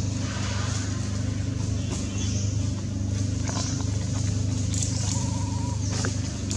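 A steady low drone of an engine running, unchanging throughout, with short faint high chirps recurring every second or so above it.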